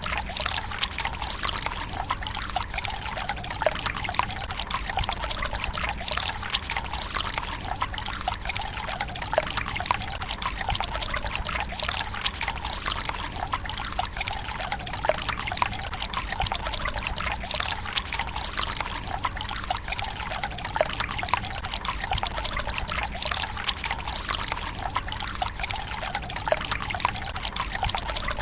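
Water pouring steadily from a bamboo spout into a Japanese tsukubai stone basin, a continuous trickle with many small splashes.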